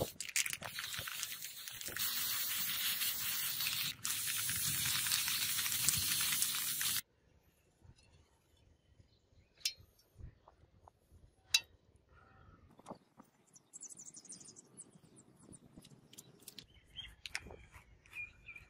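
Aerosol spray-paint can hissing in long sprays, with a short break about four seconds in, then stopping abruptly about seven seconds in. After that only faint scattered clicks.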